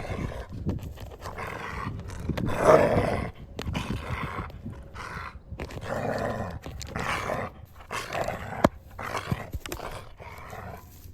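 Growls, snarls and animal cries of a wolf pack attacking a horse, in a run of irregular bursts, the loudest about three seconds in. A single sharp knock comes near the end.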